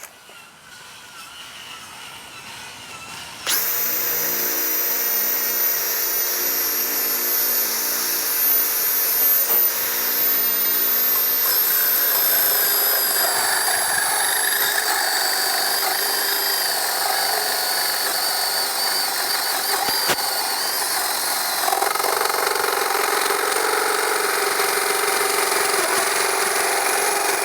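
Power drill driving a Diablo hole saw: it starts with a sudden high whine about three and a half seconds in, then grinds steadily as the saw cuts through wood with embedded fluted masonry nails. The sound of the cut changes about twelve seconds in and again a little past twenty seconds.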